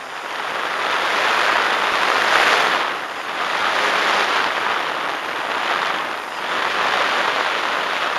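E-flite Timber RC plane's electric motor and propeller running on the ground, the prop blast rushing over the on-board camera's microphone. The rushing swells and eases a few times as the throttle changes.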